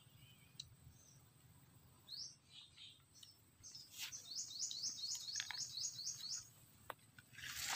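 A bird calling: a few scattered chirps, then a fast run of about ten high, rising, evenly repeated notes lasting some two seconds. A brief rustling noise comes right at the end.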